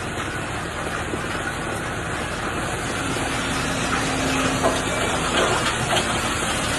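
Industrial wood chipper running with a steady rushing noise, with a few sharp cracks about two-thirds of the way through.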